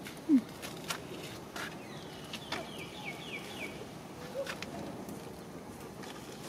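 Macaques moving over dry leaf litter: scattered rustles and clicks. A short low call sounds about a third of a second in and is the loudest thing. Around the middle comes a run of several quick, high, falling chirps.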